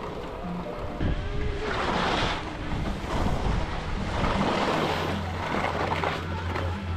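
Skis hissing and scraping over packed snow on a downhill run, with wind buffeting the camera microphone and rising and falling in surges. A low steady hum comes in about halfway.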